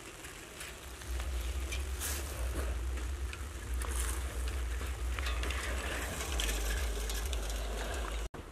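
Wind rumbling on the camera microphone: a steady low rumble from about a second in, with a faint crackling hiss over it.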